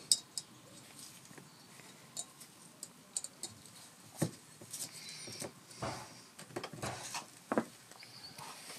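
Scattered small clicks, taps and light scrapes of small metal carburetor parts, such as jets, being handled and fitted.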